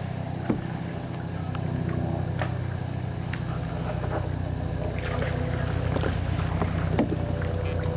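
Small motor on a kayak running steadily with a low hum, with a few light knocks scattered through.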